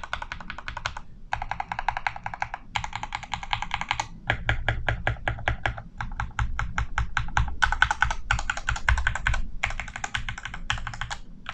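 RK68 mechanical keyboard typed on quickly in bursts of rapid keystrokes with short pauses between. It has unlubed linear Gateron Yellow and RK Red switches, and the board is damped with foam layers and painter's tape on the PCB.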